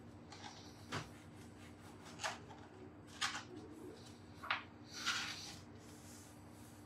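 Metal ring cutter pressed through slices of bread onto a plastic cutting board: about five short, soft crunches and taps a second or so apart, the last a slightly longer scrape. A faint steady hum lies underneath.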